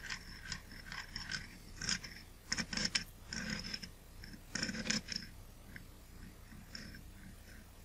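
Optical cleaning paper wetted with cleaning fluid, pushed around on the glass of a lens element with a lens pen to wipe off fungus: short squeaky, scratchy rubbing strokes in bursts, dying down after about five seconds.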